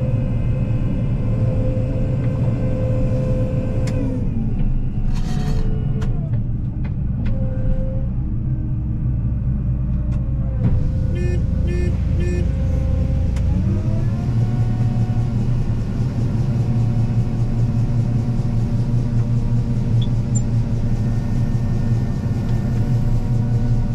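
Combine harvester engine running steadily under load. Its pitch sags a few seconds in and again near the middle, then climbs back up. Three short beeps sound just before the pitch recovers.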